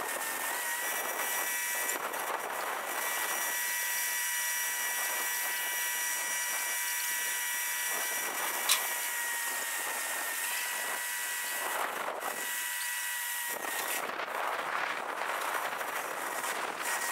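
Steady whirring machinery noise from the crane-lift work site, with a faint steady whine and one sharp click about halfway through.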